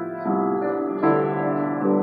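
Grand piano being played: sustained chords, with a new chord struck about a quarter second in, again about a second in, and once more near the end.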